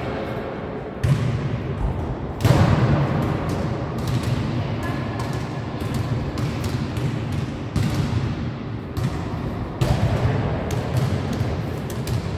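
Basketballs being dribbled and a football being kicked on a sports hall's wooden floor: many irregular, overlapping thuds echoing in the large hall.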